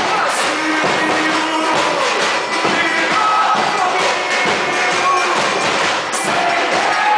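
Background music with a dense, busy texture, playing steadily throughout.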